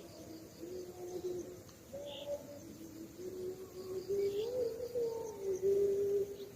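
A strange, unbroken low tone that wavers slowly up and down in pitch, growing a little louder toward the end.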